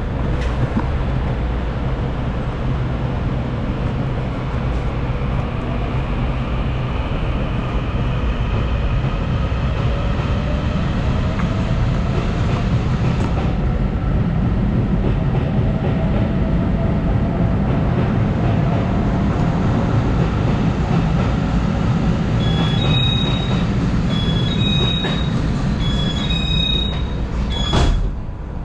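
Taiwan Railways electric local train running on the rails: a steady low rumble with a motor whine that glides up and down in pitch. Near the end come three short runs of high beeping, then a sharp click.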